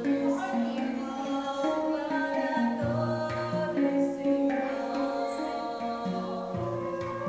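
A small live ensemble playing a devotional song: a woman singing a melody over a concert flute and a handpan, whose struck notes ring out about once a second.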